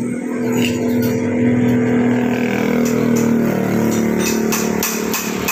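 A motor vehicle engine running steadily, its pitch sinking slowly before it fades. Regular sharp taps, two or three a second, start near the end.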